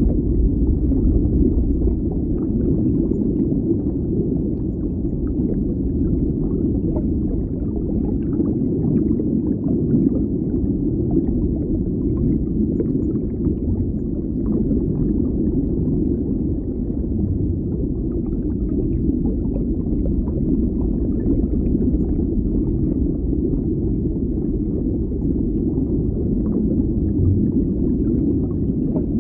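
Steady, muffled underwater bubbling: a low, even wash of water noise with small bubble ticks scattered through it.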